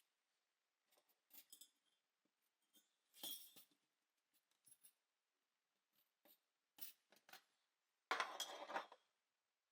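Scattered small clinks and clicks of glass and metal as small watch movement parts are handled and placed for cleaning. A louder rattling scrape lasts just under a second near the end.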